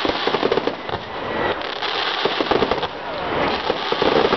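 Fireworks display in a dense barrage: many bangs and crackles from bursting shells overlap in quick succession.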